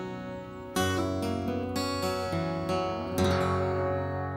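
Background music: strummed acoustic guitar chords, with a strong strum about three seconds in, after which the music fades away.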